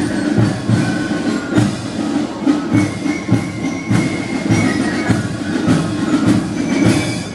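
Band music with a steady drum beat and held melody notes.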